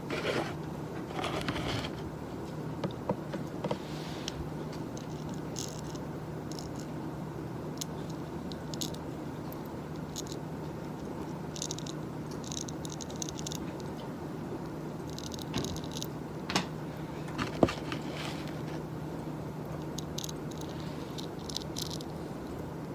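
Scattered light taps, clicks and brief scrapes or rustles of small objects being handled at a desk, over a steady low hum of office room tone. Two sharper clicks stand out about two-thirds of the way in.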